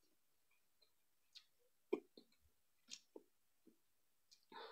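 Near silence broken by faint, scattered mouth sounds of eating: soft smacks and clicks while chewing, the loudest about two seconds in.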